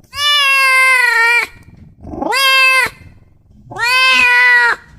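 Domestic cat meowing three times: a long meow, a shorter one, then another long one.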